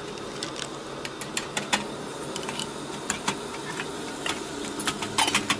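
Wooden chopsticks clicking and scraping against a small saucepan as stir-fried ramyeon is stirred over a portable gas burner: irregular sharp taps, several a second.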